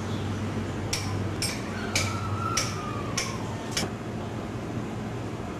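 Caged black-throated magpie-jay calling: six short, sharp notes about half a second apart, with a falling whistled note in the middle of the series.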